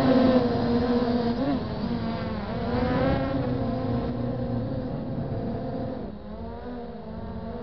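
MJX Bugs 3 quadcopter's brushless motors and propellers whining steadily in flight just after liftoff, heard from the drone's own camera. The pitch wavers as the throttle changes, and the sound drops a little about six seconds in.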